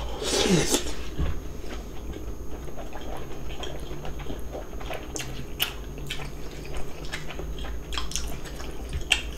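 People eating cold noodles in young-radish water kimchi broth: a loud slurp in the first second, then chewing and scattered light clicks of utensils.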